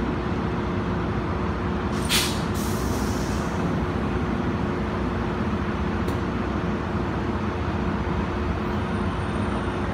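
Tri-Rail commuter train standing at the platform with a steady mechanical hum. About two seconds in there is a short, sharp hiss of air from the brakes.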